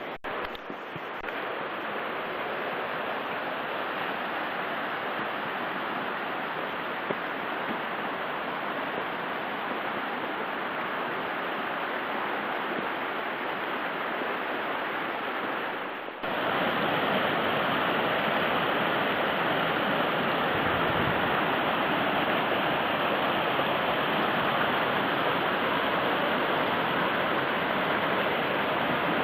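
Steady rushing of running water from a mountain stream. It jumps abruptly louder about sixteen seconds in, then carries on evenly.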